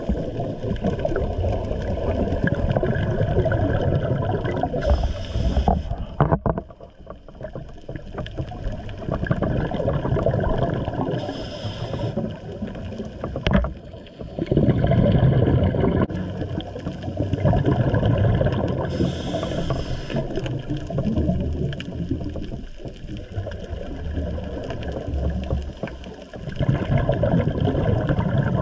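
Scuba diver breathing through a regulator underwater: a short hiss of the inhale about every seven seconds, three times, each followed by a long bubbling rumble of exhaled air.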